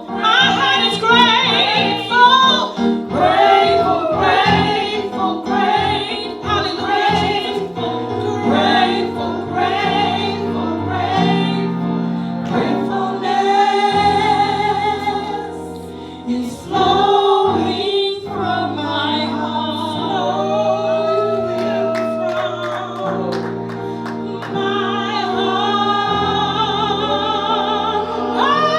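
Gospel choir singing a worship song with instrumental backing, the voices holding long notes that slide up and down in pitch.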